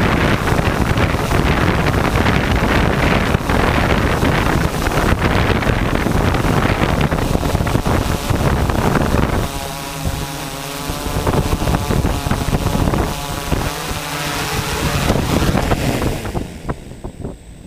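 Heavy wind rumbling over a small camera microphone. It eases about halfway through, when a low steady hum comes in, and it fades near the end.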